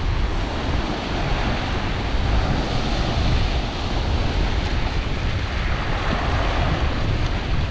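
Steady wind noise on the microphone over small waves washing across a flat rock shelf at the water's edge.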